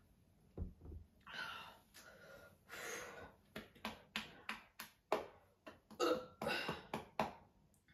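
A woman breathing hard through the mouth after gulping Sprite, with a run of short, sharp catches of breath, more and quicker after the middle. A dull thump near the start as the plastic bottle is set down on the table.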